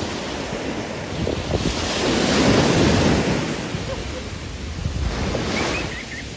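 Sea waves washing, with wind buffeting the microphone; the rush swells loudest about two to three seconds in.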